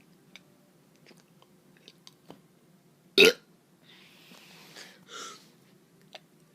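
A child's short, abrupt forced burp about three seconds in, followed by two softer breathy puffs of air; otherwise only faint clicks.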